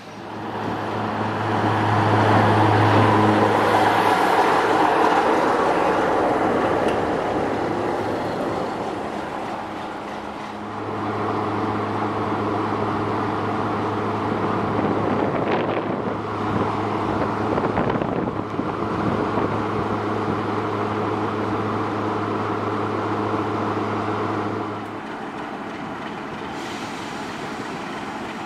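Class 45 'Peak' diesel locomotive's Sulzer 12LDA28-B twin-bank engine running with a steady deep hum. It is loud at first and fades away over several seconds, then hums steadily again before dropping to a quieter idle near the end.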